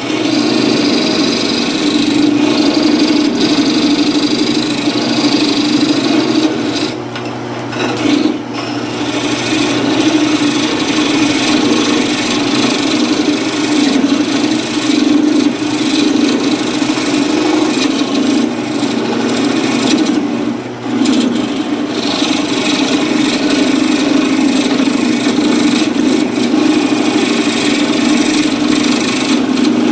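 Wood lathe running steadily, a constant hum, with a tool or abrasive rubbing on the spinning green cherry wood. The sound drops briefly twice, about a third of the way in and again past the middle.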